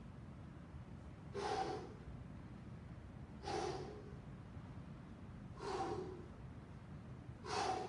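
A man breathing hard during a dumbbell exercise: four forceful, noisy breaths about two seconds apart, over a low steady hum.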